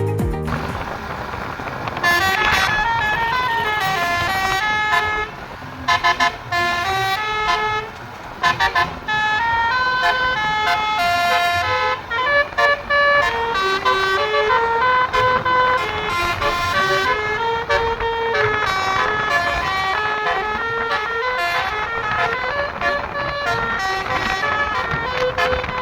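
Indonesian 'telolet' Basuri bus horn playing a tune of stepped notes that hop up and down in pitch, with a few brief breaks.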